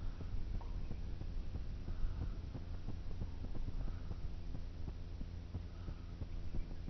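Low rumble and light rattling from a bicycle rolling slowly on a road, picked up by a camera on the bike, with a soft swish repeating about every two seconds.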